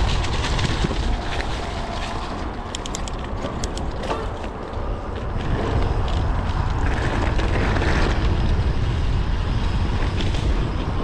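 Wind rushing over an action camera's microphone and tyres running on a dirt trail while a mountain bike rolls downhill, with a short run of sharp clicks and rattles from the bike about three seconds in.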